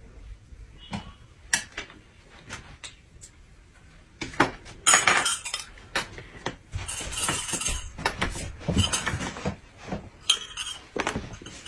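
Metal spoon clinking and scraping against a glass cup as it stirs, in clusters from about four seconds in, after scattered light clicks of tableware.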